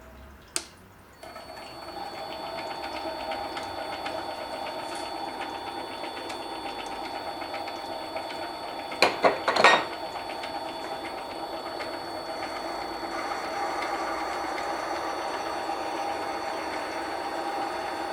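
Mini lathe running steadily with a fast, even gear rattle and a steady whine. A brief cluster of loud sharp knocks comes about nine seconds in.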